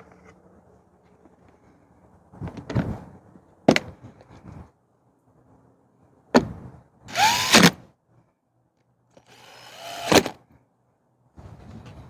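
A cordless driver whirring in a few short bursts between clicks and knocks as the plastic access covers are fastened back onto a Genmax GM3200i inverter generator.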